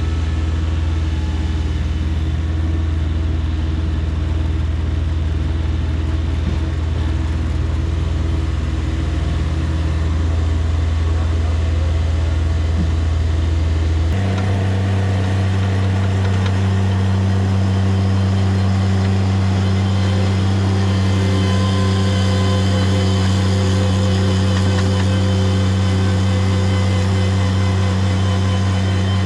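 Engine of excavating machinery running steadily, its speed stepping up to a higher, steady pitch about halfway through.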